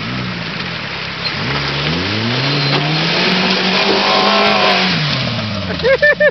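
A buggy's four-cylinder 1100 cc engine revs up, rising in pitch as it drives through a shallow river, then drops off as it passes. Water splashes heavily from the wheels in the middle. Near the end, a person's voice comes in quick, loud bursts.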